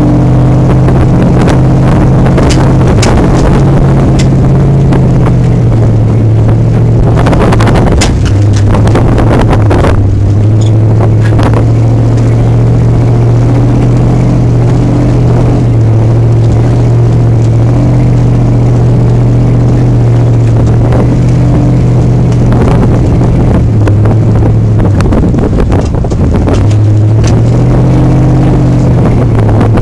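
Engine of an open-sided off-road tour vehicle running steadily as it drives over a sandy desert track, its pitch shifting a few times later on. A noisier, clattering stretch comes around eight seconds in.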